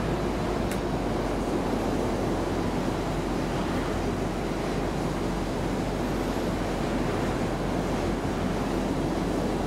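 Steady low rushing background noise, even throughout, with a faint click less than a second in.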